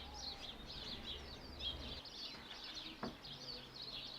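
Several wild birds chirping and singing, many short high calls overlapping without pause. A low hum underneath stops about two seconds in, and a single sharp click sounds about three seconds in.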